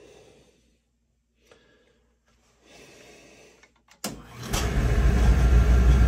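The oil burner on an old Utica dry-base boiler firing up about four seconds in: it cuts in suddenly, and a loud, steady low rumble builds within a second and keeps running.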